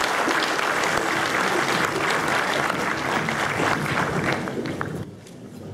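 Theatre audience applauding, stopping about five seconds in.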